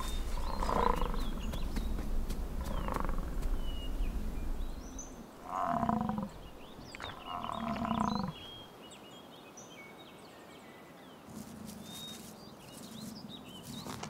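American bison giving a series of low calls: two fainter ones about one and three seconds in, then two louder ones, each about a second long, starting near five and seven seconds in.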